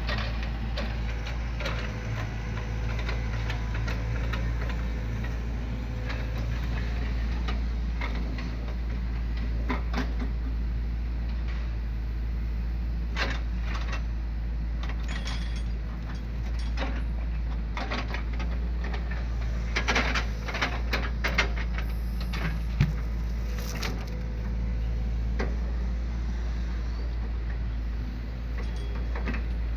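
Hydraulic excavator's diesel engine running steadily while its log grapple loads logs onto a truck bed. Sharp knocks and clatters of wood and steel come now and then, in a cluster about twenty seconds in.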